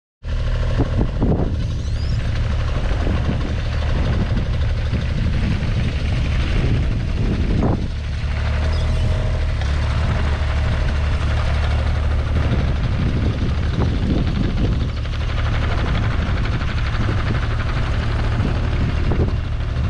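JCB 8016 mini excavator's diesel engine running steadily as the machine tracks across the yard, with a few short clanks now and then.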